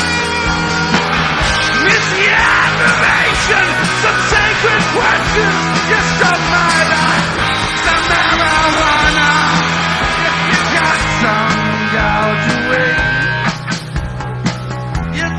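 Rock music with a singing voice over a steady, repeating bass line.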